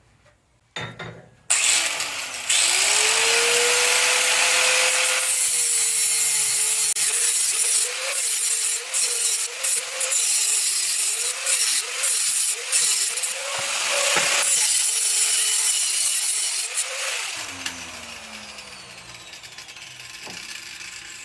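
A high-speed electric cutting tool spins up, then cuts through the steel threaded rod of a vise's main screw with a loud, hissing, grinding sound. Its pitch sags and recovers again and again as the cut loads it. It then winds down in a falling whine near the end.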